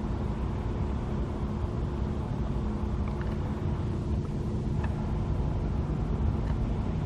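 Engine running steadily, a low hum with a few faint ticks.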